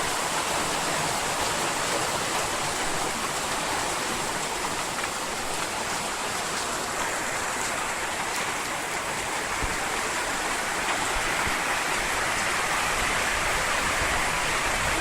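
Torrential tropical downpour: heavy rain pounding down in a steady, dense hiss, loud enough that speech can't be heard over it.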